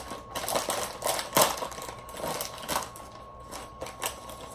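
A crinkly plastic chip bag being opened and handled, an irregular run of crackles with a few sharper rustles.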